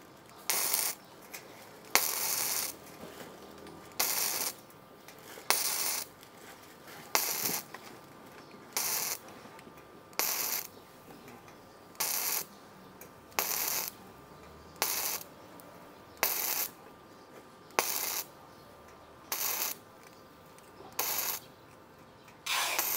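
Smart Mix 232 MIG welder running 1 mm gasless flux-core wire, striking the arc in short bursts of about half a second, roughly one every one and a half seconds: stitch or spot welding on galvanized steel sheet.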